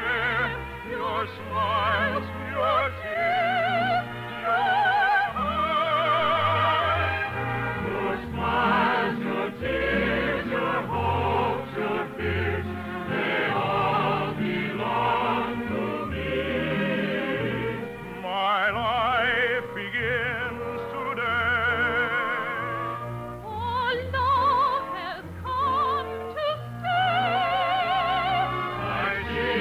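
Operetta singing with strong vibrato over an orchestra, with no pauses, in a narrow-band 1951 radio broadcast recording.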